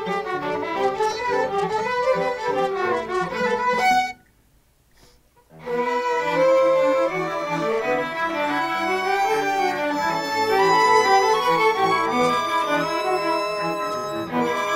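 String orchestra of violins, cellos and double bass playing together. About four seconds in the music stops dead for a pause of about a second and a half, then the whole ensemble comes back in at once.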